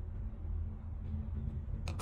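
A steady low hum, then near the end a short click and scrape as the plastic diamond-painted phone grip is turned over in the hand.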